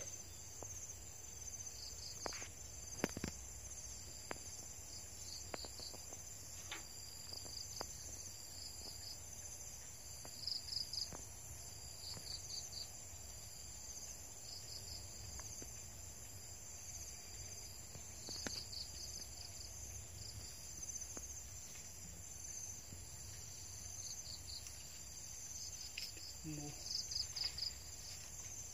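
Night insects: a steady high drone, with faint high chirps in short runs of three to five quick pulses recurring every few seconds, and a few faint clicks.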